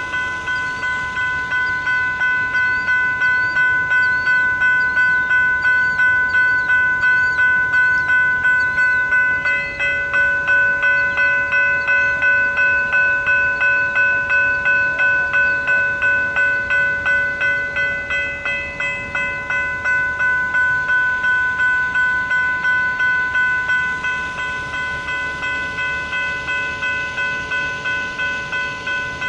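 Electronic railroad crossing bells ringing steadily, about two strikes a second, while the grade crossing's signals are activated in a malfunction. A second, lower-pitched bell joins about ten seconds in, and the sound drops a little near the end.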